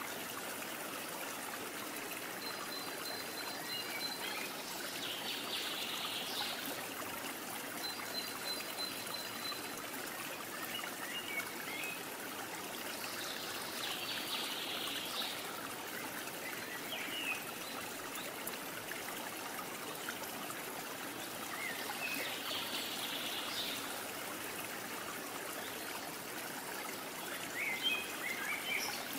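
Steady rushing noise like flowing water, with faint high chirps that come back about every eight seconds.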